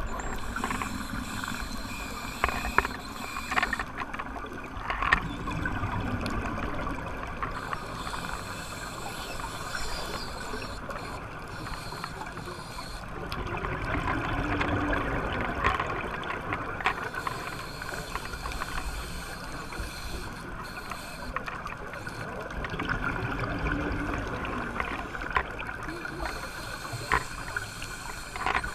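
Scuba regulator breathing recorded underwater: exhaled bubbles gurgling in slow swells, with a few sharp clicks.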